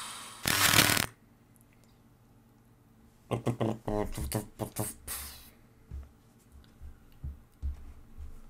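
Logo sound effects at the start of a web series: a brief whoosh about half a second in, then, a few seconds later, a quick run of short vocal-like beats ending in a hiss, followed by a few soft low thumps.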